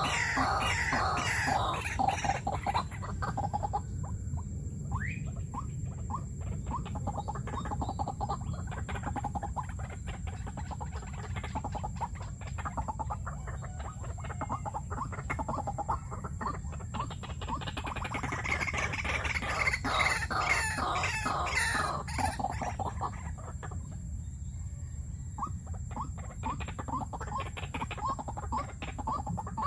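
Caged decoy white-breasted waterhens calling in runs of quick, repeated short notes, in several bouts with brief pauses between.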